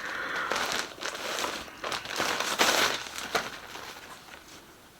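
Plastic packaging crinkling and rustling as clothes from a haul are handled and unwrapped, with a few sharp crackles; it dies down toward the end.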